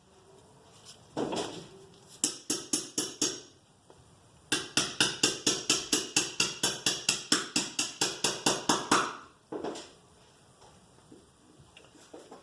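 Brake caliper hardware being greased and worked by hand: quick repeated scraping strokes, about four or five a second, in a short run and then a longer run of around twenty.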